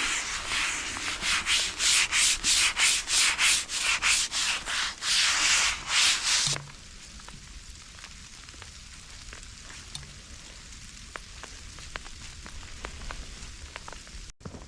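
Rhythmic rubbing or scraping strokes, about three a second, that stop suddenly about six and a half seconds in, leaving a faint patter with scattered light ticks.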